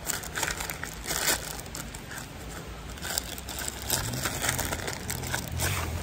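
Irregular crinkly rustling and crunching as a person kneeling in snow moves about, with jacket fabric and snow being disturbed. A faint low hum comes in about four seconds in.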